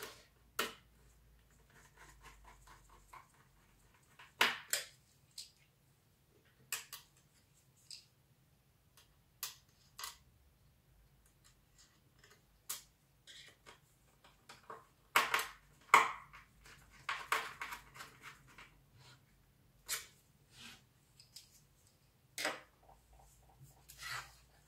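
Small screwdriver clicking and scraping against screws and a red aluminium router enclosure as a circuit board is screwed in, with scattered taps and knocks of the case being handled. A busier cluster of clicks comes about two-thirds of the way through.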